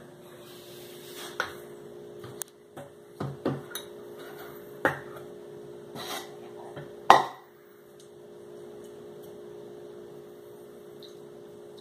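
Scattered clinks and knocks of a metal measuring spoon, a plastic bottle and measuring cups being handled and set down on a wooden table, the loudest knock about seven seconds in, over a steady low hum.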